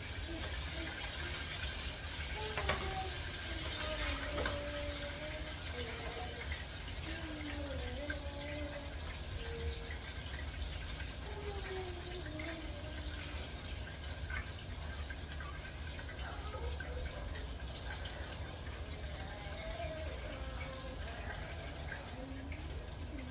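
Chicken wings frying in hot oil: a steady sizzling hiss, with faint voices underneath.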